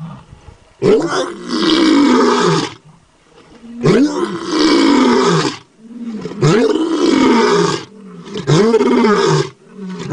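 Tiger roaring in a series of loud, drawn-out calls, about five of them, each lasting one to two seconds and rising then falling in pitch, with short breaks between them.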